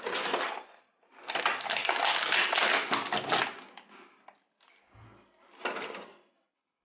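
Clear plastic blister packaging crinkling and crackling as it is handled, in three bursts: a short one at the start, a long one from about one to three and a half seconds, and a shorter one near six seconds. A brief low thud about five seconds in.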